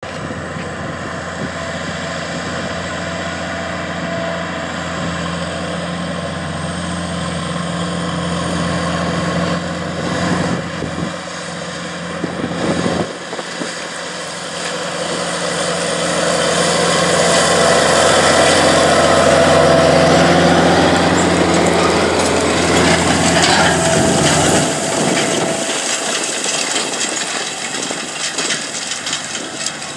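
Challenger MT855 track tractor's diesel engine working under load as it pulls a rotary harrow, growing louder as it approaches, loudest about two-thirds of the way through as it passes, then fading as it pulls away.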